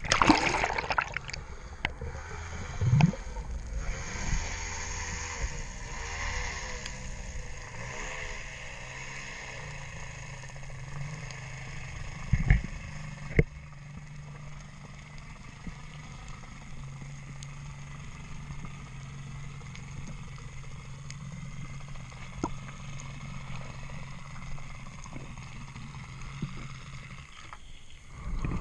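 Underwater sound on a spearfishing dive: a loud rush of water at the start, then faint gurgling over a steady low hum. Two sharp knocks come about halfway through.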